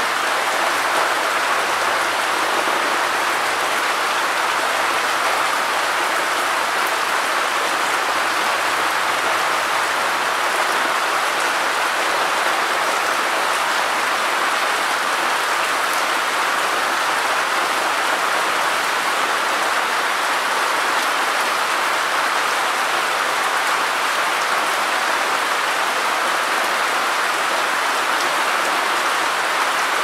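Steady rain falling on wet concrete ground, an even hiss.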